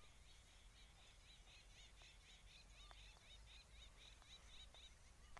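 Faint, quick repeated bird chirps, about four a second, stopping shortly before the end, over quiet outdoor ambience.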